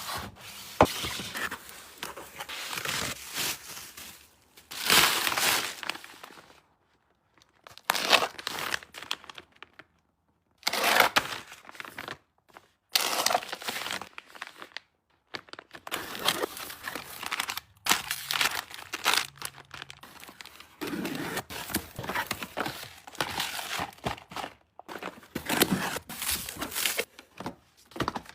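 Crinkling and rustling of packaging being handled, in a series of separate bursts with short pauses between, some with a tearing edge.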